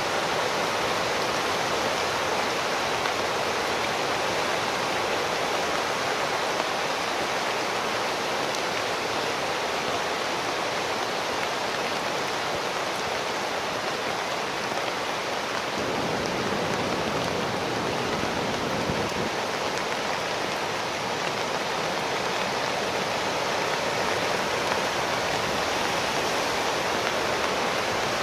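Storm floodwater rushing steadily down a flood-control channel.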